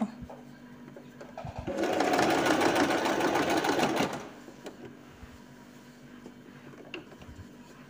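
Electric domestic sewing machine running for about two and a half seconds as it stitches down a folded fabric corner. It starts about two seconds in and then stops.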